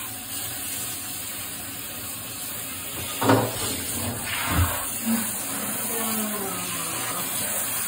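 Handheld shower head spraying water steadily, with two short, louder sounds about three and four and a half seconds in.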